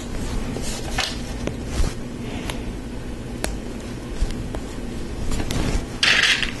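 Plastic Lego Technic pieces being handled and fitted, with scattered light clicks and a brief louder rustle near the end.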